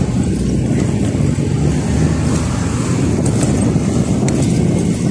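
Steady rumble of a vehicle in motion, with wind on the microphone.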